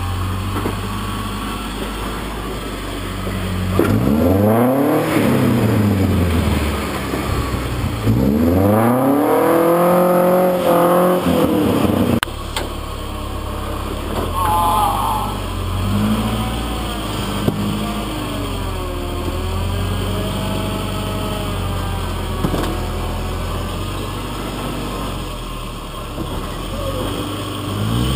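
Rock-crawler buggy's engine revving up in two loud bursts, about four and nine seconds in, then running at lower, wavering revs under load as it climbs a steep boulder ledge.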